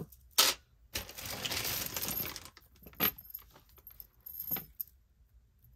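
Metal costume jewelry jingling and clinking as it is picked out and handled, a chunky metal link chain among it: a sharp click, a rustling jingle for about a second and a half, then a few separate clinks.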